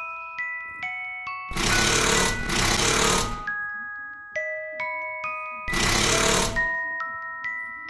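Java sparrow pecking rapidly at a fabric collar right against the phone's microphone, heard as three close, dense bursts of about a second each: two back to back about a second and a half in, one near six seconds. Light background music of bell-like notes plays throughout.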